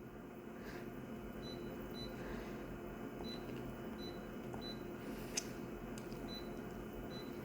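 Photocopier running with a steady low hum, faint short high-pitched blips every second or so, and a single sharp click about five and a half seconds in.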